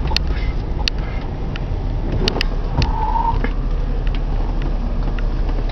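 Steady low rumble of a car driving, heard inside the cabin, with a few light clicks and knocks scattered through it.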